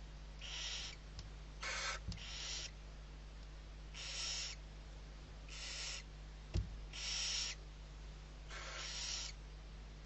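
Barn owl chicks giving their hissing food-begging calls, each a breathy hiss of about half a second, repeated about every second and a half. A single low thump sounds about two thirds of the way through.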